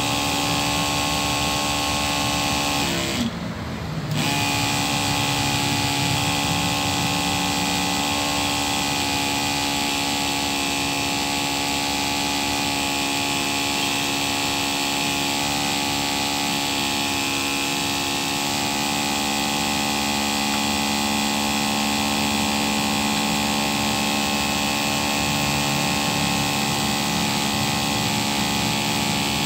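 Electric pressure sprayer's pump motor running with a steady hum. About three seconds in it briefly slows and drops out, then picks up again.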